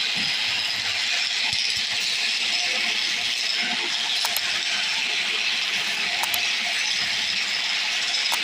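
Wood lathe turning a table-leg blank while a turning tool cuts it: a steady scraping hiss, with a few brief clicks.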